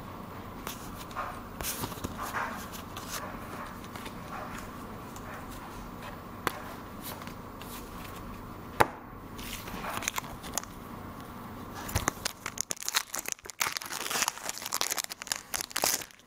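Small clicks and rustles of Pokémon cards being handled, with one sharp click about halfway. In the last few seconds, dense crackling of a foil booster-pack wrapper being crinkled and torn open.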